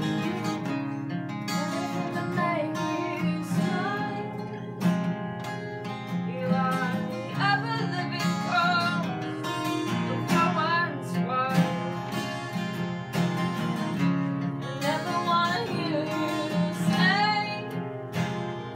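Two acoustic guitars playing a song together, chords strummed under a wavering melody line that comes and goes.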